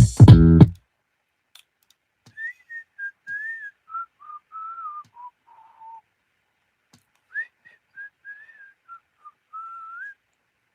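A person whistling a melody in two phrases, the first drifting downward in pitch and the second starting high, after a music beat cuts off just under a second in.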